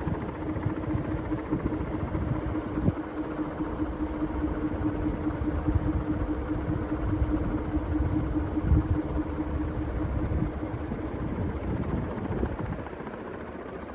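Clipsal ceiling fan running: a steady motor hum over rumbling air noise, with scattered faint ticks, the annoying ticking fault the fan has developed. The hum stops about three-quarters of the way through and the rumble drops soon after.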